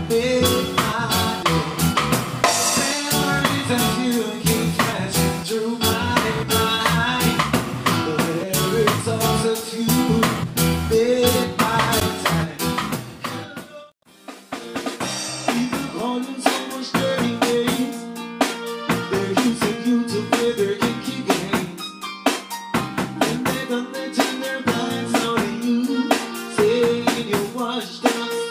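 Live band music: drum kit with snare rimshots and bass drum, bass guitar and keyboard playing a steady groove. The music cuts out for a moment about halfway, then starts again.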